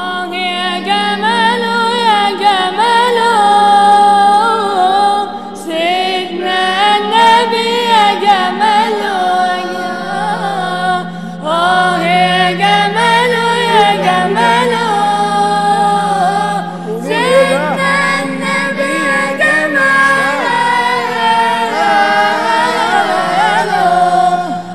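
An a cappella inshad group singing: a lead voice carries a long, wavering, ornamented melody in phrases, over a steady low held drone that drops in pitch about ten seconds in.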